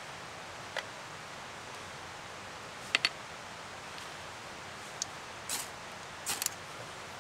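Firewood and bark being handled and broken for a campfire: a handful of short, sharp snaps and clicks, the loudest a double snap about three seconds in, over a steady faint hiss.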